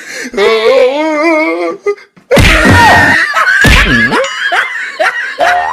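Cartoon-style comedy sound effects: a wobbling, wavering tone, then a loud heavy hit a little over two seconds in, followed by a swooping tone that dips and rises.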